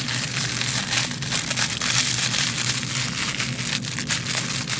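Crinkle fabric crackling continuously inside a plush toy's stuffed snout as hands squeeze it and unfold it.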